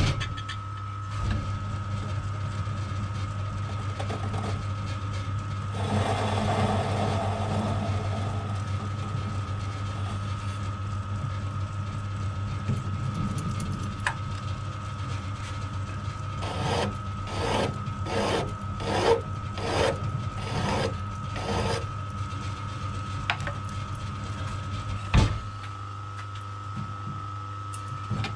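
Small metal lathe switched on and running with a steady motor hum and whine. About two-thirds of the way in comes a run of about eight short strokes, roughly two a second, and a couple of sharp knocks near the end.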